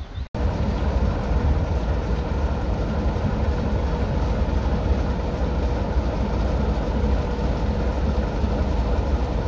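Diesel locomotive engine idling steadily: a deep, even rumble with a held hum. It cuts in about a third of a second in.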